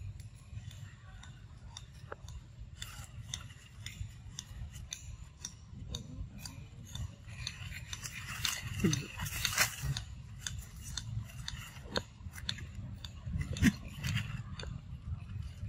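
Dry leaves and twigs crackling and rustling: a run of small clicks and crunches, busiest about halfway through, over a steady low rumble.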